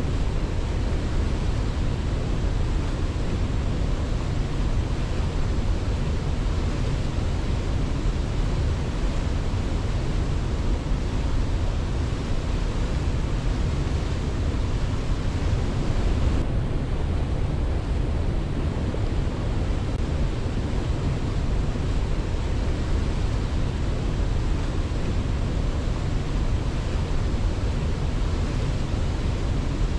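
Waterfall: a steady, loud rush of falling water with a deep low rumble and no birds or other events over it. The hiss dulls slightly in the highs about halfway through.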